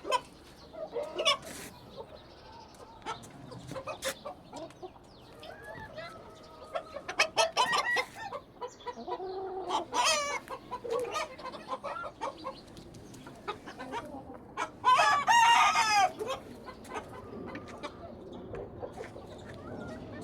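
Aseel chickens clucking and calling on and off, with one rooster crow, the loudest sound, about three quarters of the way through.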